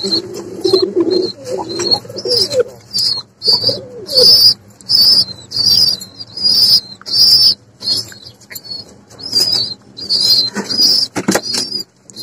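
Fancy pigeons cooing low in the first couple of seconds, under a run of short, high bird chirps that repeat about twice a second and are the loudest sound.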